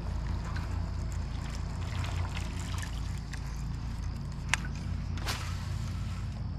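Water lapping and trickling around a kayak hull over a steady low rumble, with two short sharp clicks about four and a half and five seconds in.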